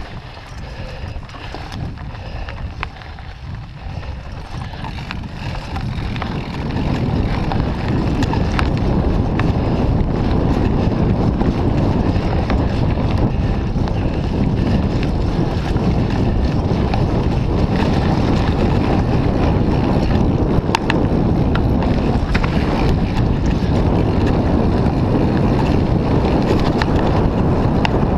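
Wind buffeting an action camera's microphone over the rumble of mountain bike tyres rolling fast down a leaf-covered dirt trail. It grows clearly louder about six or seven seconds in, with scattered small clicks and rattles throughout.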